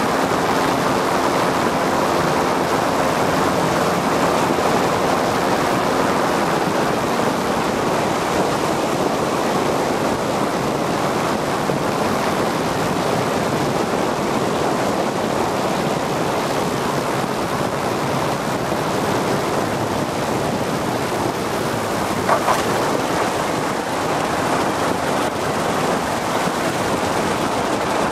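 Steady rush of airflow over a microlight trike's wing-mounted camera, with the trike's engine droning underneath. A single sharp tap sounds about 22 seconds in.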